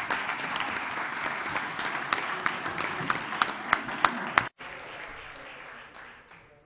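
Audience applauding, with single sharp claps standing out. It cuts off abruptly about four and a half seconds in, and a weaker remainder fades out.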